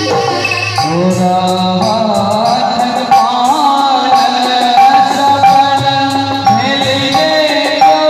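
A song in a South Asian style playing loudly: a melodic line with sliding, ornamented notes over instrumental accompaniment.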